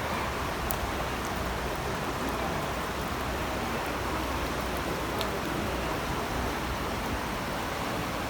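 Steady rushing of water from heavy rain and floodwater, an even hiss with no let-up and a few faint ticks.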